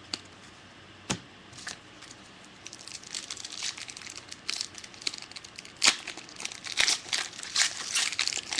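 Plastic trading-card pack wrapper being handled and torn open: a few separate crackles, then from about three seconds in a dense stretch of crinkling.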